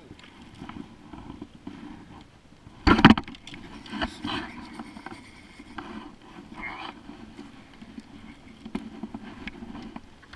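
Handling noise of a spinning rod and reel in a plastic sit-on-top kayak as a hooked trout is reeled in: scattered light clicks and knocks, with one loud thump about three seconds in.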